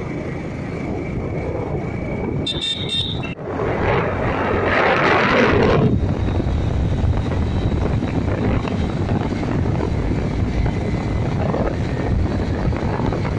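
Motorcycle riding along a road: steady engine rumble mixed with wind rushing over the microphone. A short, high pulsing beep sounds about two and a half seconds in, and the rush swells louder for a couple of seconds just after it.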